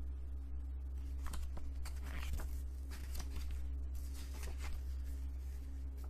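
Pages of a thick paper booklet being turned and handled: soft, irregular rustles and flicks over a steady low hum.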